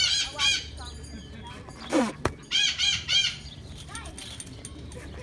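Chickens clucking: two short runs of repeated high calls, about three calls each, a few seconds apart.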